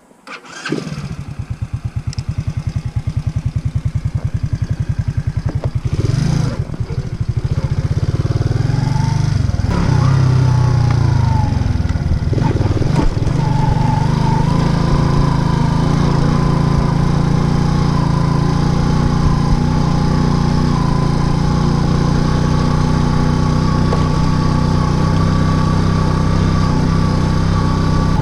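Racer Alpha RC50 moped's 50 cc single-cylinder four-stroke engine starting up about half a second in and idling with an even putter. Its revs rise and fall a few times, then it runs steadily at higher revs with a held whine.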